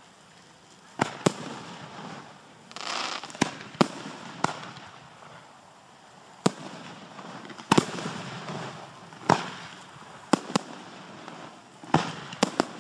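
Display fireworks, aerial shells and cakes, bursting overhead in an irregular series of about a dozen sharp bangs, each trailing off in an echo. There is a longer noisy patch about three seconds in.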